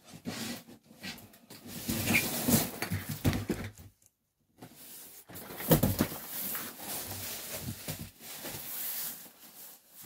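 A large cardboard box being lifted, slid and handled on a wooden desk: irregular scraping and rustling, with one sharp knock a little under six seconds in.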